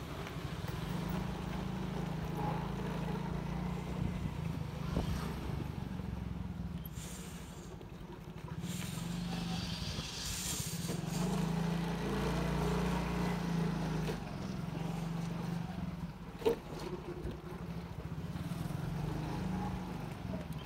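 Motor scooter engines running in a narrow residential street, a steady low hum that dips and then swells again, with one sharp knock about two-thirds of the way through.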